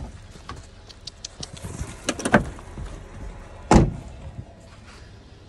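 Knocks and clicks from movement beside a vehicle, with a cluster about two seconds in and one loud thump a little before four seconds in, over a low steady hum.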